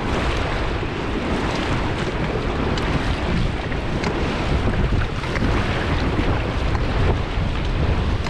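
Rushing whitewater of a Ganges river rapid around a raft, with wind buffeting the microphone as a steady low rumble.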